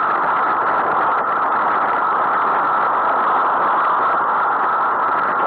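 Steady rushing wind and road noise picked up by a camera mounted on a moving bicycle, with no separate events standing out.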